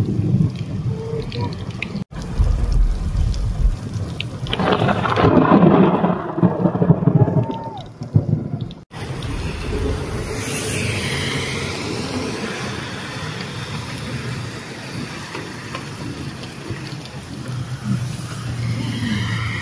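Heavy rain with low wind rumble on the microphone and a louder swell for a few seconds. Then, after a cut, muddy floodwater rushes steadily over rocks and the road edge in an even roar.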